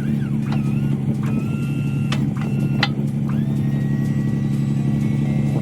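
Pickup truck engine running steadily with a low drone, no revving. Over it come several short, high squeaks that slide and then hold for a moment, and a few sharp clicks between about two and three seconds in.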